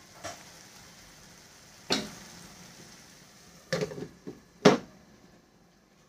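Peas and masala simmering in a nonstick pan with a faint sizzle, while a glass lid clinks against the pan a few times. The loudest knock, at about four and a half seconds, is the lid being set down on the rim, and the sizzle turns muffled and quieter after it.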